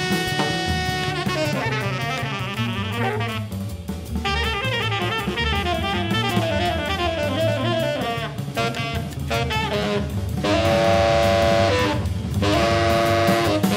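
Jazz trio recording: a tenor saxophone plays quick melodic runs, then two long held notes near the end, over bass and a drum kit with hi-hat.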